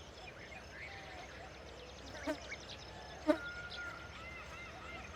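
Several small birds calling and singing. There is a fast, even run of high, buzzy ticks, then arched chirps repeated about three a second through the second half, and two sharp, loud notes about a second apart in the middle.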